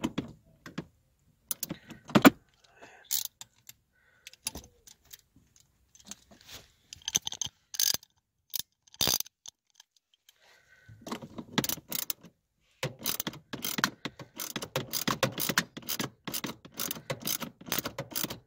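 A ratchet wrench with a 10 mm socket turns a car's parking brake cable adjuster nut, tightening the cable. Scattered metallic clicks and clinks give way, about halfway through, to a long run of quick ratchet clicks.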